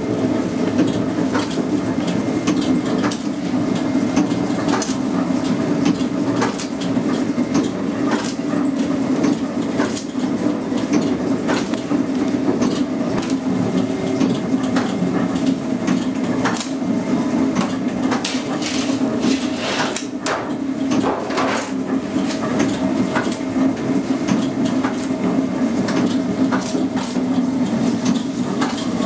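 Bakery dough-moulding machine running steadily, its motor-driven conveyor belt and rollers humming, with scattered clicks and knocks as dough pieces are fed in and rolled out.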